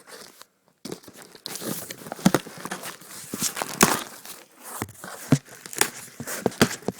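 Plastic or paper shipping packaging being torn open and crumpled by hand: irregular rustling and crinkling with sharp tearing crackles.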